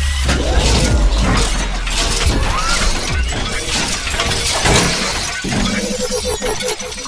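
Cinematic logo-intro sound effects: a dense run of shattering, crashing hits over a deep bass rumble that fades out after about two seconds, with music underneath.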